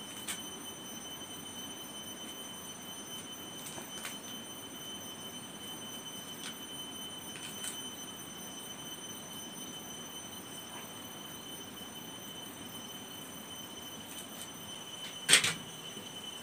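Wood fire burning with a few faint pops and crackles, under a faint steady high tone. About fifteen seconds in comes a sharp, loud double knock.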